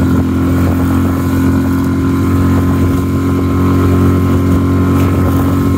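Small inflatable boat's outboard motor running steadily at high speed, about 13 to 14 mph, a constant hum of several steady tones with a rush of water and wind over it.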